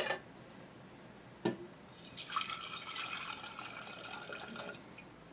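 Acetone poured from a metal can into a glass jar: a trickling pour lasting about three seconds with a steady tone as the jar fills, preceded by a single knock about a second and a half in.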